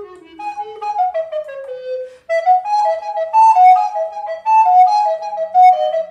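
Solo recorder playing quick runs of notes. A falling run ends in a brief breath pause about two seconds in, followed by a fast passage of rapidly alternating notes.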